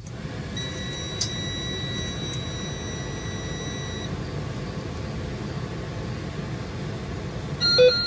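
School bus dashboard warning buzzer sounding a steady high tone for about three and a half seconds at key-on, while the gauges sweep, over a steady low rumble. A short, louder beep comes near the end.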